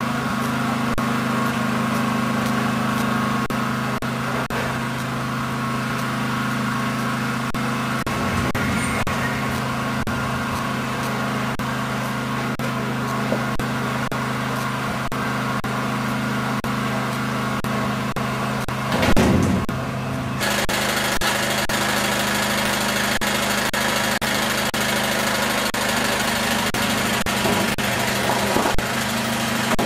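Crop chopper trolley for pepper plants running with a steady machine hum, with one brief loud noisy burst about 19 seconds in.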